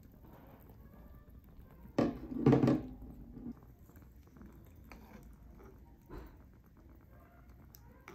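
Soft clinks and scrapes of a ceramic spoon in a clay hot-pot of tofu and soy milk. About two seconds in there is a louder clunk, followed by a brief low rumble.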